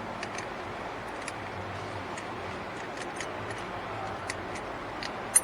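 Scattered small metallic clicks and ticks of an ignition lock cylinder and its housing being handled and turned by hand, with one sharper click near the end.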